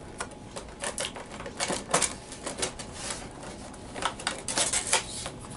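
Cardboard window box being handled and opened at its bottom flap, with irregular crinkles and clicks of card and plastic packaging.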